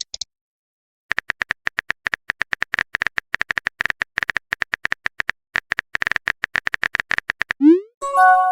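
Rapid, irregular clicks of a phone-keyboard typing sound effect go on for several seconds. Near the end comes a short rising whoosh, then a chiming message-notification tone made of several steady notes.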